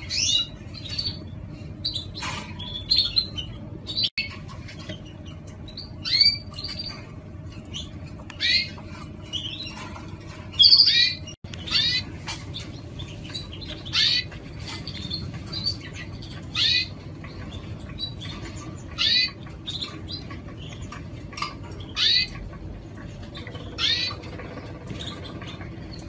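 Canary giving short, sharp chirps, one every second or two, over a steady low hum.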